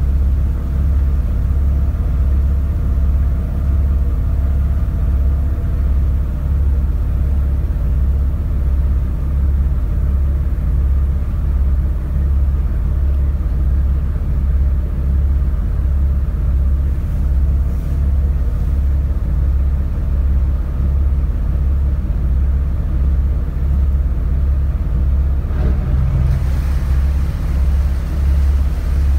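The engine of the small ferry Funaukimaru running, a loud, steady, low pulsing throb. A hiss rises over it about four seconds before the end.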